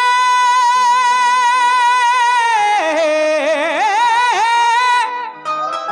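Male qawwali singer holding a long, wavering high note, then running through a fast melismatic passage. He breaks off about five seconds in, leaving the accompaniment quieter.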